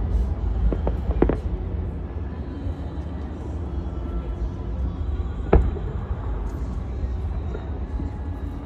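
Aerial fireworks shells bursting: a few sharp cracks about a second in, then a single loud bang about five and a half seconds in, over a steady low rumble.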